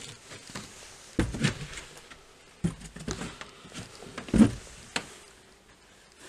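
Slow footsteps on old bare wooden stairs and floorboards: a few dull thuds with lighter scuffs between them.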